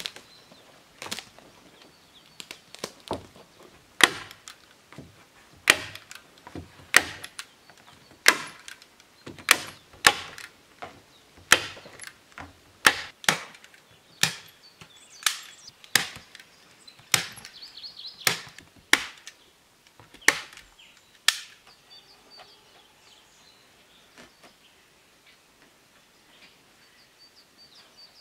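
Axe chopping wood, one sharp stroke about every second, stopping after some twenty strokes. Faint bird chirps follow near the end.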